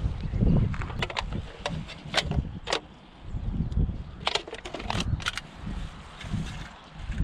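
Wind buffeting the microphone in gusts, with a scattered run of sharp clicks and crackles between about one and five and a half seconds in.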